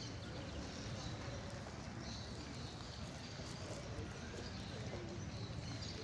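Park ambience: a steady background hiss with scattered faint bird chirps.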